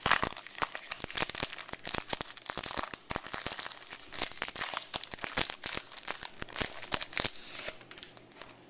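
Trading-card pack wrapper being torn open and crinkled by hand: dense crackling and rustling that eases off near the end.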